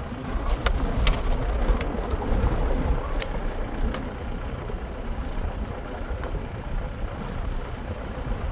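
Mahindra Scorpio SUV on the move: a steady low rumble of engine and road noise, with scattered sharp clicks and rattles, most of them in the first four seconds.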